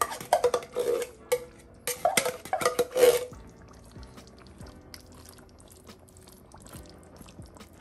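A spoon and can knocking and scraping against a metal stew pot for about three seconds, then much quieter stirring of thick stew.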